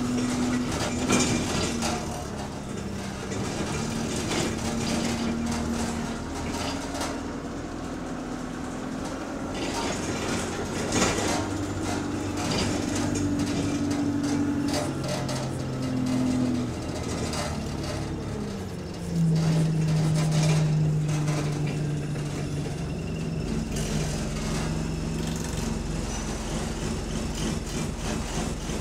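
Bus engine heard from inside the passenger saloon, running as the bus drives, its note shifting pitch several times and loudest and deepest about two thirds of the way through. Rattling and clicks from shaking parts run through it.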